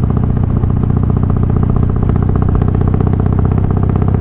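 Harley-Davidson Softail's Twin Cam V-twin engine, fitted with Feuling 525 cams, running steadily under way, with an even pulsing exhaust beat that holds the same pitch throughout.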